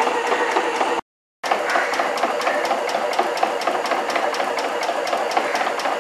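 Tram machinery running with a steady, rhythmic mechanical clatter of about five beats a second. The sound cuts out completely for a moment about a second in, then carries on.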